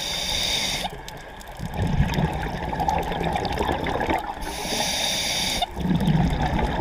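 Scuba diver breathing through a regulator underwater: two cycles of a short hissing inhalation, each followed by a longer, low bubbling exhalation.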